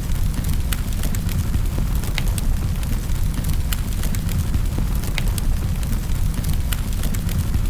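Wood fire crackling in a fireplace: a steady low rumble of the flames with scattered sharp pops and snaps.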